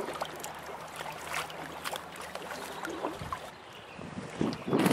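Shallow river water running, with irregular small splashes close by.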